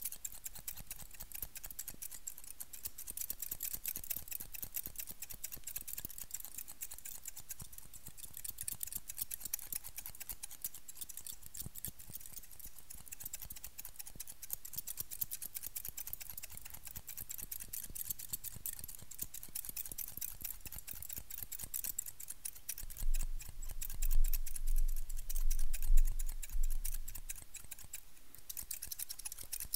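Two pairs of barber scissors snipped very fast right at the microphone: a dense, steady stream of crisp metallic snips. For a few seconds near the end, low rumbling thumps rise above the snipping and are the loudest sound.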